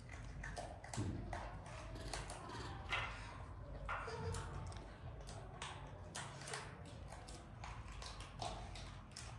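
Young monkeys eating fruit: irregular wet chewing and lip-smacking clicks, with a few short squeaks.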